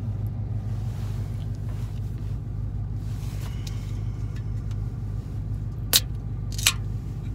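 Car engine idling steadily, a low even rumble heard from inside the cabin, with two sharp clicks near the end.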